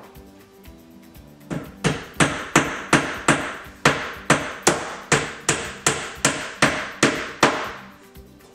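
Hand hammer driving nails into the stacked wooden countertop boards of a kitchen island: about sixteen sharp, even blows, roughly three a second. They start about a second and a half in and stop near the end.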